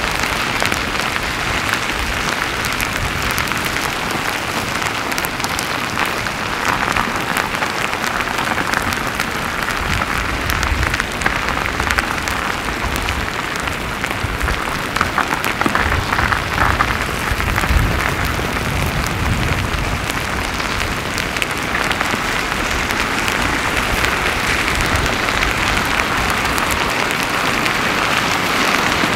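Slabby pahoehoe lava flow front crackling steadily as its cooling crust breaks, with scraping from slabs of crust being dragged along the older cooled flow beneath. A low rumble comes and goes in the middle.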